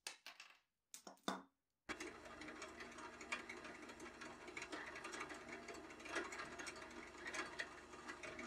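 A twist drill bit boring through a thin metal strip, a steady whirring and scraping that starts about two seconds in. It is preceded by a few short handling sounds from a tube cutter turned on copper pipe.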